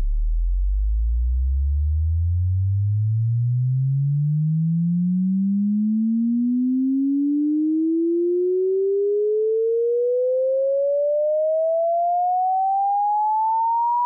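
Pure sine-wave test tone sweeping slowly and smoothly upward in pitch, from a deep bass hum to a mid-pitched tone, at a steady level. It is a buzz and rattle test sweep for speakers, during which no buzz or rattle should be heard.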